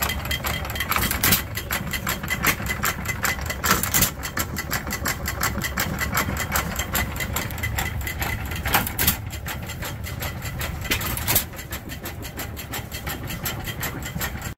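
Economy 1.5 horsepower single-cylinder antique gas engine running: a fast, even clicking, with a louder firing beat every few seconds, four in all.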